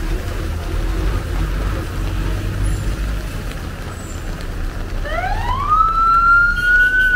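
Low rumble of street traffic, then an emergency vehicle's siren winding up about five seconds in: one rising tone that climbs quickly and then holds high.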